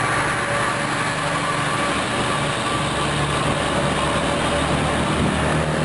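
Large truck passing close by, its engine running with a steady hum under a continuous rush of road noise.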